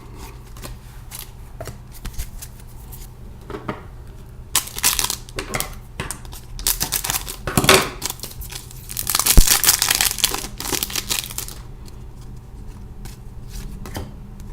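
A hockey card pack's wrapper being torn open and crinkled, in several bouts of rustling, the busiest and loudest a little past the middle.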